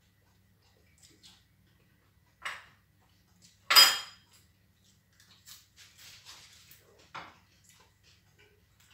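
Plates clinking and scraping on a table while food is taken by hand: a few separate clinks, the loudest a sharp ringing one about four seconds in, with light scraping between about five and a half and seven seconds.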